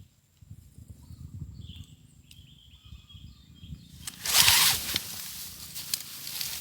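Rustling and handling noise, with a loud rustle about four seconds in.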